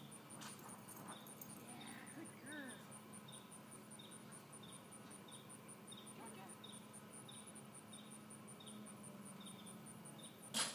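Insects chirping steadily outdoors: a fast, high pulsing trill over a slower chirp that comes about twice a second. A single sharp click near the end is the loudest sound.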